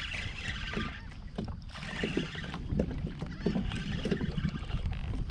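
Water splashing and lapping around a kayak in irregular bursts, over a steady low wind rumble.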